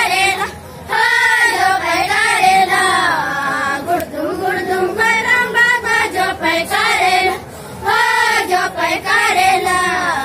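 A group of Gond girls singing a rela pata folk song together, in sung phrases broken by two short breaths: one about a second in and one near the eight-second mark.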